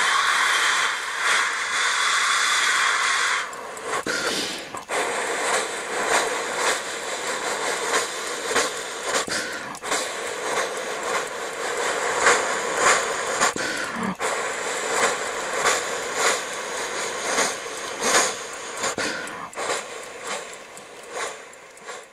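Sound-equipped HO scale three-truck Shay locomotive model: a steam whistle blows for about three seconds, then steady chuffing continues and fades toward the end as the train moves away.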